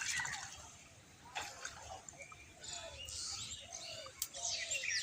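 Birds chirping and calling: several short, pitch-bending calls over a faint outdoor background.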